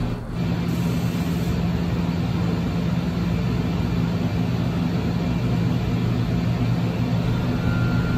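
Steady, loud drone of PVC mixer-line machinery running, with a low hum, while the batch is discharged from the hot mixer into the running cooler.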